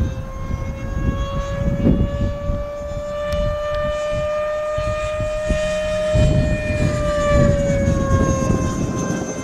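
Electric ducted fan of an FMS Futura model jet whining steadily in flight. Its pitch climbs gradually to a peak about six seconds in, then falls back.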